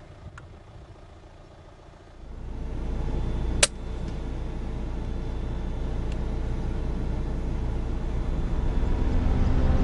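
Low steady rumble of a vehicle's engine coming in about two seconds in, with a single sharp crack about a second later: a sound-moderated CZ 452 .22 rimfire rifle firing a subsonic round.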